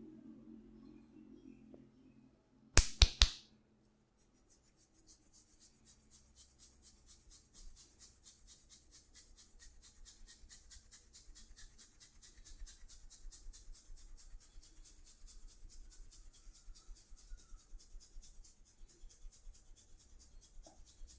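Three sharp, loud cracks in quick succession, then a long even run of light, crisp clicks several times a second.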